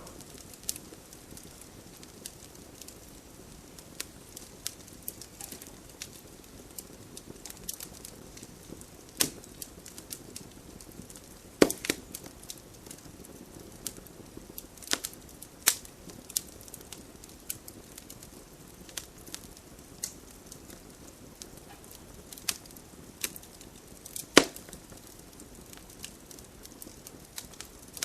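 Wood campfire crackling: irregular small pops and ticks over a soft steady hiss of the burning fire, with a few louder sharp snaps of burning wood, the loudest about a third of the way in and again past the middle.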